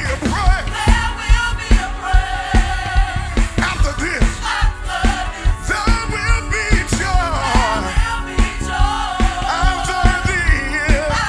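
Gospel praise-and-worship singers with a live band: several voices singing with vibrato over a fast, steady drum beat.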